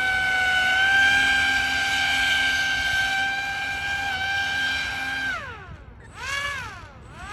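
Pro Boat AeroTrooper RC airboat's electric motor and fan propeller whining at a steady high pitch at full throttle. About five seconds in the pitch drops sharply as the throttle is let off, rises and falls once in a short blip, then climbs again near the end.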